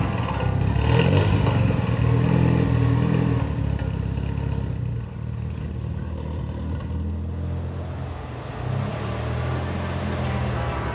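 Mitsubishi Lancer Evolution GSR's turbocharged four-cylinder engine running, its pitch rising and falling a few times.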